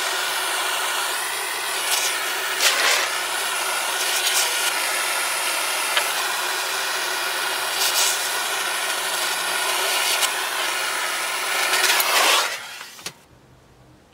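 Steady hissing rush of a heating tool playing on a beeswax-coated railroad spike, heating the wax until it burns black. A few sharp ticks come through it, and the rush stops about 13 seconds in.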